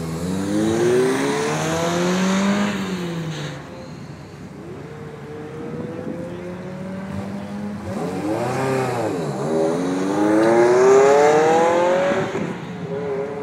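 Ferrari V8 sports cars accelerating away hard one after another, engine pitch climbing as each revs up. There is one run in the first three seconds or so, a short blip of the throttle around the middle, and a second full-throttle run in the last few seconds.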